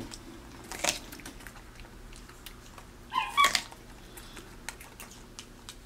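Capuchin monkey eating corn on the cob, with small crunching clicks as she bites the kernels. About three seconds in she gives one short, high-pitched squeak.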